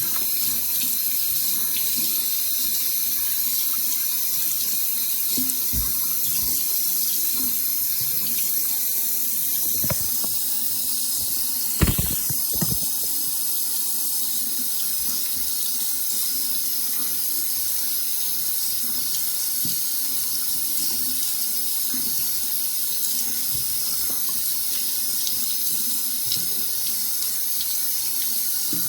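Water running steadily from a tap into a sink, with a brief knock about halfway through.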